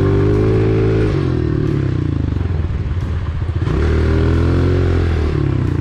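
Honda CRF125F single-cylinder four-stroke dirt bike engine on the throttle. It backs off into a choppy low putter about a second in, comes back up near four seconds and backs off again near the end, as the rider fans the clutch through a turn.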